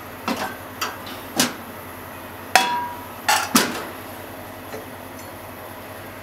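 A series of sharp clinks and knocks of kitchen dishes and utensils, about six in the first four seconds. The loudest, about two and a half seconds in, rings briefly. A steady low hiss runs underneath.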